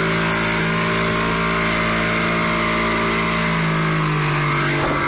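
Outboard motor of a Shetland 498 motorboat running steadily at speed, over the rush of the wake and wind on the microphone. The engine note drops slightly about three and a half seconds in.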